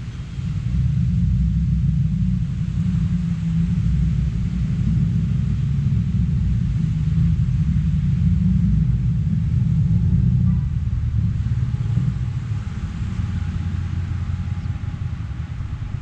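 A loud, low rumble that comes up about half a second in and carries on unevenly, with little above it but a faint hiss.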